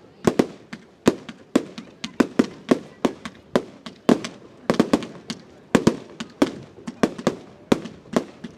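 Fireworks display: a rapid, irregular string of aerial shell bursts, about three or four loud bangs a second, each trailing a short echoing rumble.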